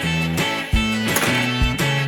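Upbeat intro music with guitar, bass notes and a steady drum beat.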